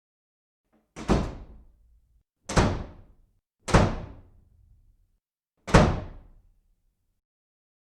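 Four loud, sharp thumps at uneven intervals, each dying away over about a second, with dead silence between them.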